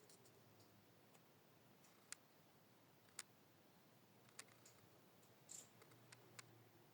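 Near silence broken by about eight faint, scattered clicks and taps from small plastic miniature pieces being handled.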